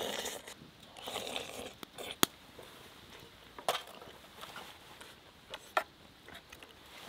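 A metal spoon clinking and scraping against an aluminium mess tin of soup, with slurps of the soup; the sharpest clink comes about two seconds in, with a few more later.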